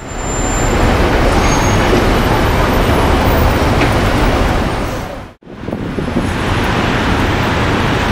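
Steady traffic noise of a busy city street, broken by a brief dropout about five seconds in.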